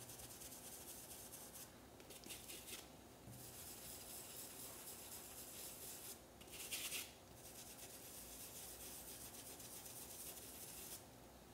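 Faint scratchy rubbing of a paintbrush working fabric paint into a cotton dish towel through a stencil, with short breaks and one louder stroke about seven seconds in; it stops shortly before the end.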